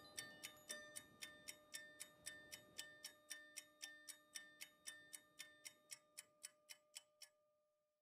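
Faint, even ticking, about four ticks a second, like a clock, over a soft held musical tone. It fades out and stops shortly before the end.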